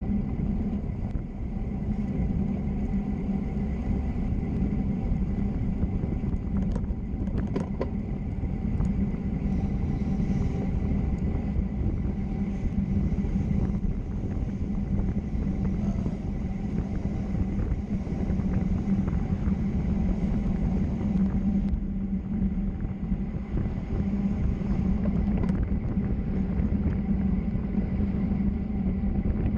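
Steady rumble and rushing noise of travel at speed down a mountain road, with wind and road noise on the microphone and no pauses.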